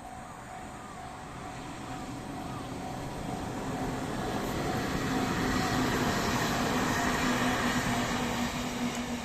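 A JR East E721-series electric multiple-unit train passes over a level crossing. Its noise builds from about three seconds in and is loudest in the second half, with a steady low hum under the rushing wheel noise. A level-crossing warning bell rings in a steady repeating pattern beneath it.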